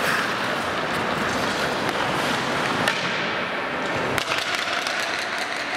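Ice hockey skates scraping and carving across the rink ice, with sharp clacks of sticks on the puck; a louder crack about three seconds in and another about four seconds in, as a shot is taken.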